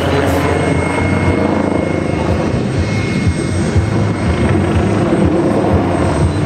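MBB Bo 105 twin-turbine helicopter in aerobatic flight: the four-blade rotor chopping rapidly and steadily over a thin, high turbine whine.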